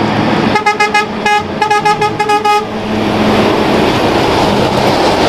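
A green B-double truck's horn sounds a rapid run of short toots over about two seconds, then the truck's steady road and engine noise rushes past.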